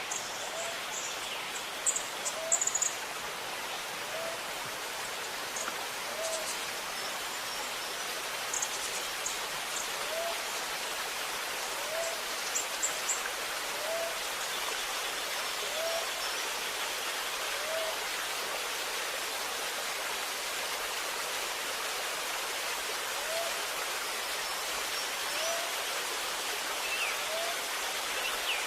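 Steadily running, gurgling water with birds calling over it: a low, short rising note repeated about once a second, and brief clusters of high chirps now and then.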